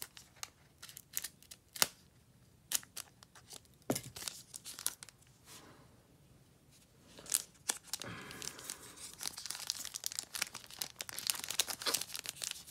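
The plastic wrapper of a trading-card pack is crinkled and torn by hand as it is struggled open. Sharp crackles come first, then a short lull, then denser crinkling and tearing from about two-thirds of the way in.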